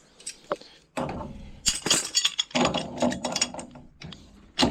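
Quick runs of metallic clicking and ratcheting from Knipex adjustable pliers being readjusted and worked on a pipe fitting.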